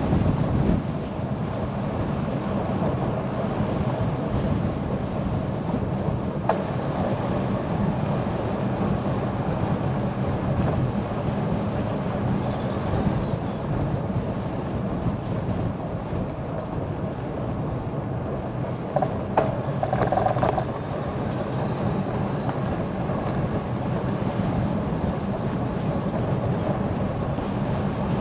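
Steady wind rumble on the microphone and tyre and road noise from a bicycle rolling along, with a few short high chirps in the middle stretch.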